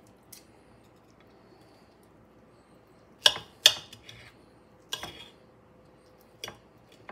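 Metal knife and fork clinking and scraping against a ceramic plate while cutting smoked bacon-wrapped steak: a handful of sharp clinks between quiet stretches, the loudest two close together a little past three seconds in.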